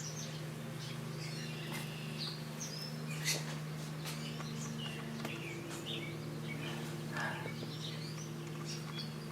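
Birds chirping on and off over a steady low hum, with a couple of faint clicks.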